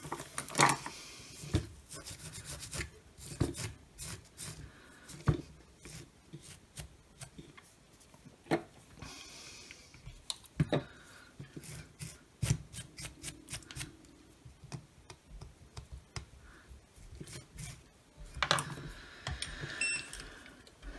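Irregular rubbing and scrubbing strokes with small clicks and taps as a brushless drill's round controller circuit board is cleaned up with liquid from a squeeze bottle, busiest near the end.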